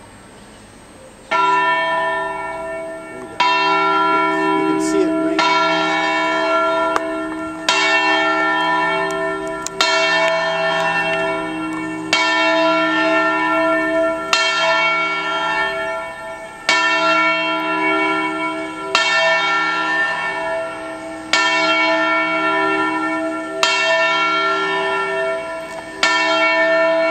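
Church tower bells ringing, starting about a second in: a strike roughly every two seconds, each leaving a long ringing hum of several tones that carries into the next stroke.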